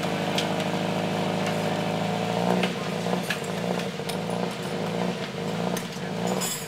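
An engine running steadily at a low, even speed, with a few sharp clicks and knocks of hand tools on top.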